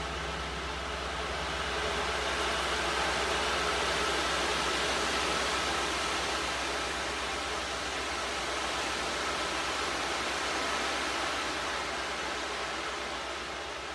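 Large gongs sounding in a dense, shimmering wash, worked with a felt mallet. The wash swells over the first couple of seconds, is fullest around four seconds in, then slowly thins out.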